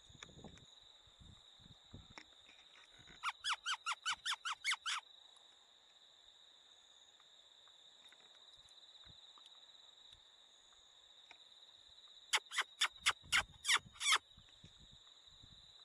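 Predator-call squeaks used to draw in or hold a fox for the shot: two quick runs of about eight sharp, high squeaks each, about five a second, the first about three seconds in and the second about twelve seconds in. A faint steady high electronic whine runs underneath.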